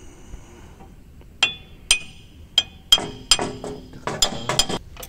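Light metal-on-metal hammer taps, a string of sharp ringing strikes beginning about one and a half seconds in. The alternator is being knocked into its mounting so it seats tight before its bolts are tightened.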